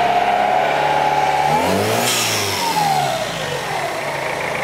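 Toyota Hilux Surf's four-cylinder turbo-diesel held at high revs, then let go about a second and a half in. The revs fall back toward idle, with a short rush of air as the throttle shuts. There is no blow-off valve, so the boost blows back out through the turbo's compressor inlet.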